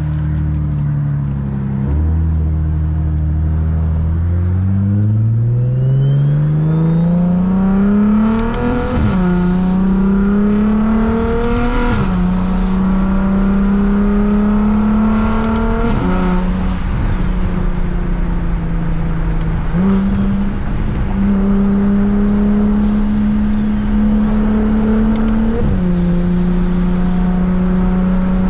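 Straight-piped BMW 335is N54 straight-six engine pulling away and accelerating, climbing steadily in pitch for several seconds, then holding a steady note with a brief dip at each gear change. A faint high whine rises and falls with the revs.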